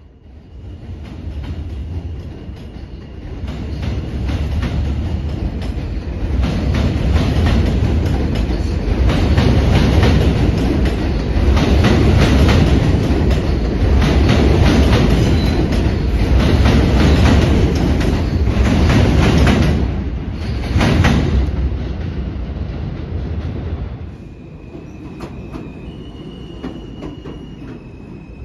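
R160 subway trains on an elevated steel line: a departing train's wheels rumble and clatter over the rail joints and switches, building up over the first few seconds and staying loud for a long stretch. The noise falls away about 24 seconds in, leaving a quieter, steady high-pitched whine as the next train pulls in.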